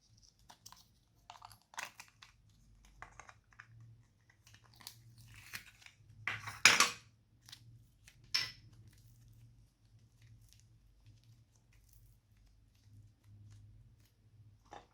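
Glossy slime with beads mixed in, squeezed and pressed by hand: irregular sticky crackles and crunchy pops, the loudest about seven seconds in and another just after eight seconds.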